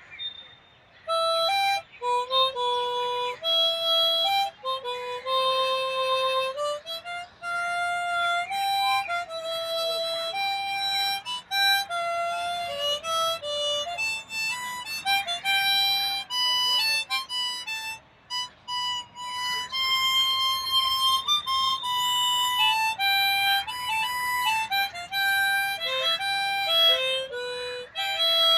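Harmonica played solo: a slow melody of held single notes, moving up and down step by step, with a short pause about a second in and another near the middle.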